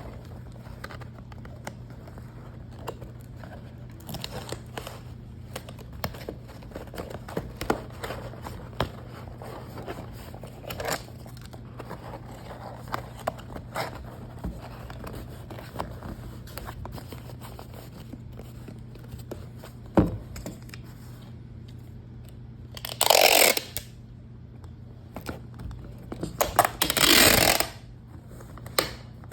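Paper and packaging being handled: scattered rustles, scrapes and taps, then two loud tearing sounds near the end, each about a second long.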